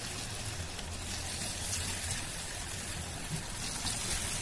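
Vegetable Manchurian balls deep-frying in hot oil in a kadai: a steady sizzle of bubbling oil.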